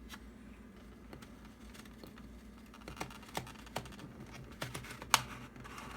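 Plastic clicking and rubbing from the viewer of a POG milkcap maker being pushed down and twisted to cut a milk cap: irregular light clicks, more of them in the second half, the sharpest a little after five seconds in.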